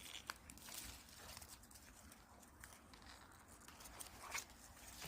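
Faint rustling of leaves and twigs with a few scattered light clicks.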